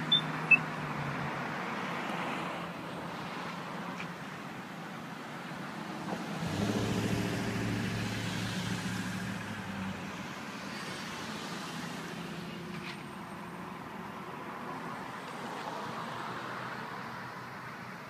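Road traffic at an intersection: car engines and tyre noise, with one vehicle's engine growing louder as it passes from about six to ten seconds in. Two short sharp clicks right at the start.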